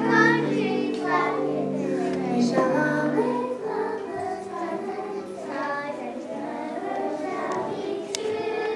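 A group of young children singing together in unison with a musical accompaniment of long held notes.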